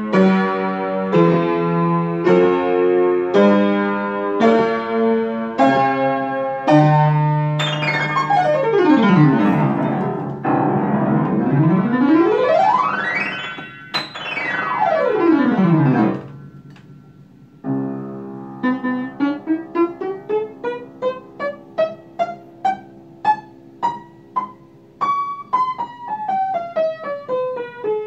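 Upright piano being played: a series of full chords, then sweeping glissandos down, up and down the keyboard, a brief pause, and a climbing run of single notes that turns and descends near the end.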